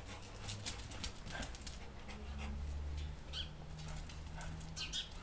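Two dogs, a puppy and a young dog, playing, with scattered clicks and a couple of short high whines, one past the middle and one near the end.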